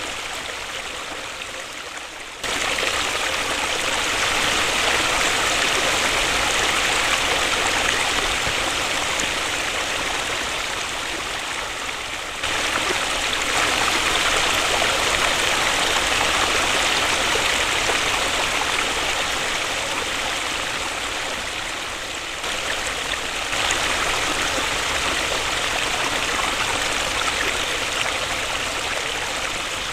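Waterfall: a steady rush of falling water, with sudden jumps in loudness and tone about two and a half seconds in, near the middle and about three quarters of the way through.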